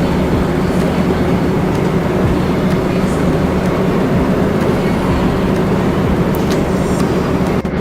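Steady, loud mechanical rumble and hum, with a brief dropout near the end.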